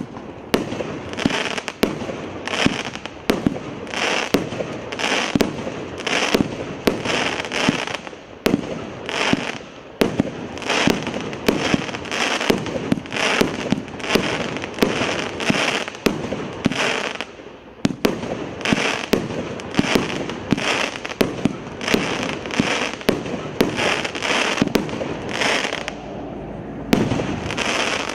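"Svadebny" SU 002-84 multi-shot fireworks cake (84 shots, 30 mm and 63 mm calibre) firing a continuous barrage: sharp launch and burst reports several times a second, each trailed by a rushing spread of stars. There is a short lull a couple of seconds before the end, then a last volley.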